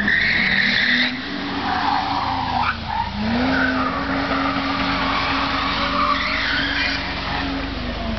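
Car spinning its tyres in a burnout, the tyres squealing against the pavement over a high-revving engine. The engine pitch dips briefly about three seconds in, then climbs back and holds.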